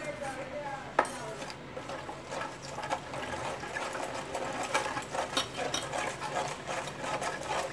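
A spoon stirring a wet mustard-powder spice paste in a steel tiffin box: a quick run of clicks and scrapes of the spoon against the steel, with one sharper clink about a second in.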